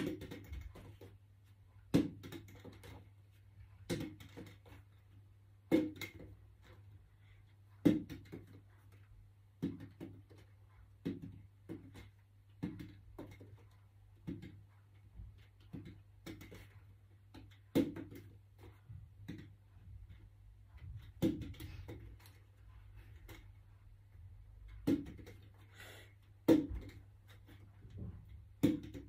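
Partly filled plastic water bottle being flipped over and over and landing on carpet, a dull thud each time, about one every one and a half to two seconds.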